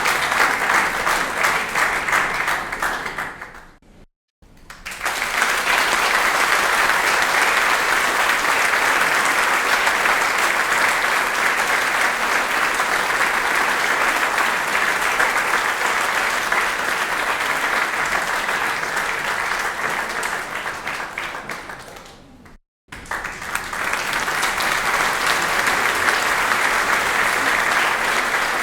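Audience applause: dense, steady clapping. One round fades out a few seconds in and is followed by a moment of silence. A new round then starts and runs long before fading to a second short silence, and a third round begins near the end.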